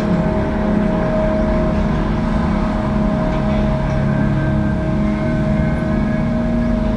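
Steady ambient drone: a held mid-pitched tone over a low hum that swells and fades about every two-thirds of a second, with fainter tones drifting above.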